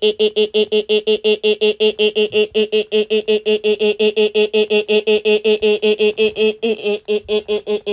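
A loud electronic tone pulsing rapidly and evenly at one steady pitch, about six beeps a second, like a synthesizer alarm.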